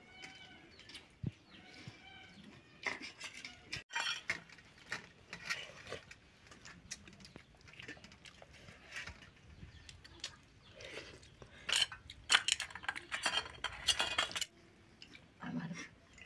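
Fingers scraping and pressing rice against stainless steel plates, with scattered clinks and rattles of the steel plates and bowls, coming thickest about twelve seconds in.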